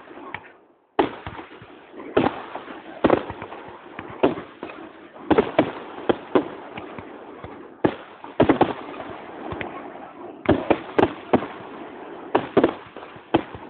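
Aerial firework shells bursting close overhead: a rapid, irregular series of sharp bangs, some in quick clusters of two or three, with continuous crackling between them.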